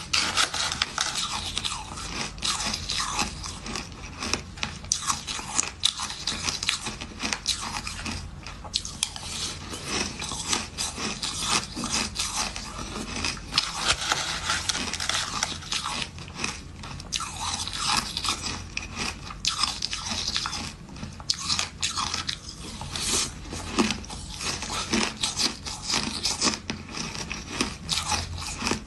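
Crushed flavoured ice crunched and chewed between the teeth in dense, irregular crackles, mixed with a metal spoon scraping and scooping through the ice in a plastic tub.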